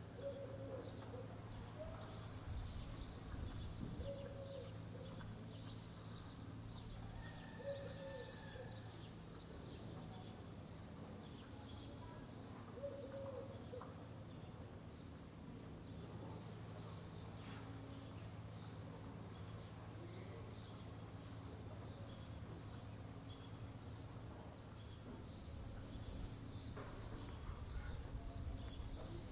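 Small birds chirping busily, with a short low call repeated a handful of times, over a faint steady low hum.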